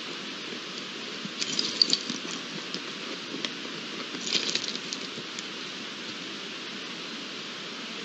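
Two young red deer stags (spikers) sparring, their antlers clacking in two short flurries of sharp clicks, about a second and a half in and again just after four seconds, over a steady hiss.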